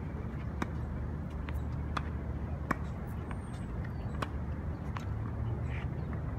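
Tennis ball being struck by racket strings and bouncing on a hard court: a series of short, sharp pops at irregular intervals, the strongest a little under halfway through, over a steady low rumble.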